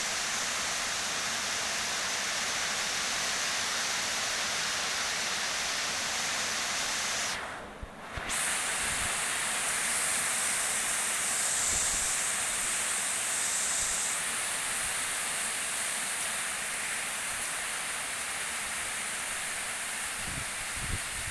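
Heavy rain making a steady, dense hiss, which dips briefly about eight seconds in.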